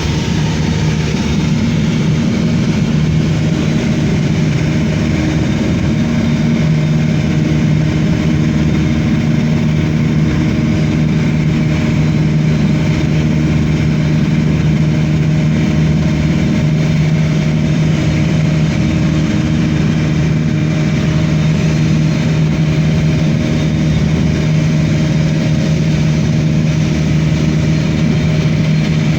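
Steady drone of aircraft engines heard from inside the passenger cabin, with a constant low hum under an even rushing noise.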